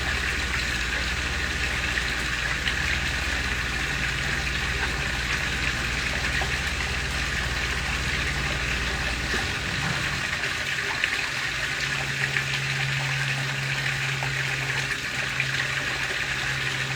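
Small waterfall splashing steadily into a koi pond. A low hum runs underneath and shifts to a higher pitch about ten seconds in.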